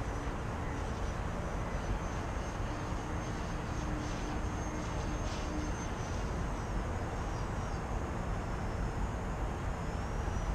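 Electric brushless motor and 8-inch propeller of a small RC 3D foam plane buzzing faintly overhead, its high whine rising and falling in pitch as the throttle changes, over a steady low rumble of background noise.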